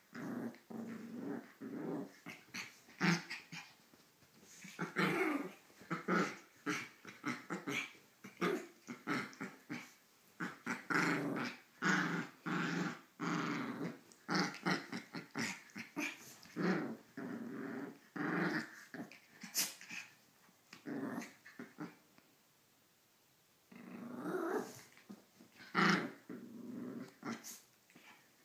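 Pomeranians growling in short, rapid, irregular bursts as they play-fight, pausing for about two seconds near the end before the growling picks up again.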